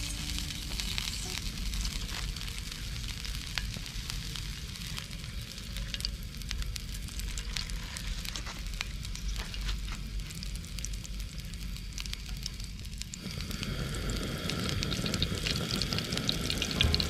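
Cooking oil sizzling and crackling in a pan: a steady hiss with many small pops.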